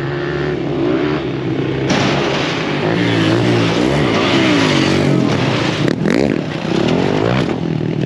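Dirt bike engines revving up and down again and again, getting louder about two seconds in.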